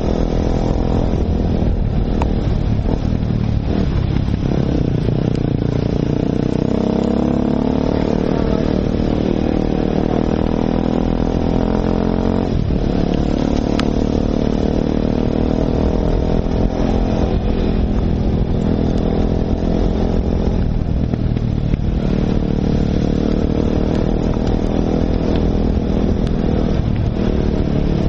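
Enduro motorcycle engine running hard under the rider, heard from on board, its pitch rising and falling again and again as the throttle is opened and closed.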